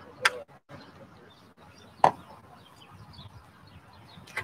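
Two short knocks about two seconds apart from recording gear being handled on a table, with faint bird chirps behind them.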